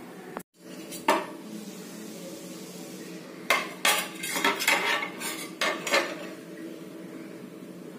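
A utensil clinking and scraping against a clay pot while stirring fish curry. There is one knock about a second in, then a quick run of about eight clinks between about three and a half and six seconds in, over a steady low hum.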